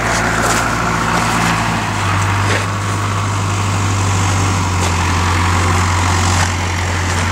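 A vehicle engine idling steadily, its low hum dropping slightly in pitch about two seconds in.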